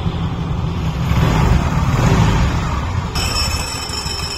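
TVS Wego scooter's 110 cc single-cylinder engine idling while the scooter is rocked, with a metallic clattering from inside the clutch-side casing that swells about a second in and gives way to a high ringing near the end. It is the sign of a faulty bendix starter pinion: its return spring has failed, so the pinion stays forward and touches the gear when the scooter is tilted.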